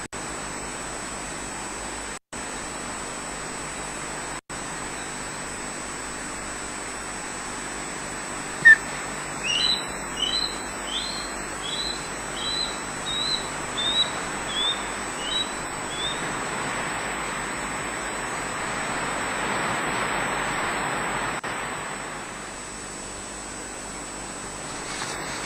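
Osprey calling: one sharp loud note, then a run of short, high chirps at about two a second lasting some six seconds, over a steady hiss.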